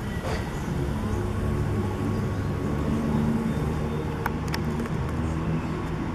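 Street traffic: a motor vehicle's engine running, a low drone that shifts in pitch, with two short sharp clicks about four seconds in.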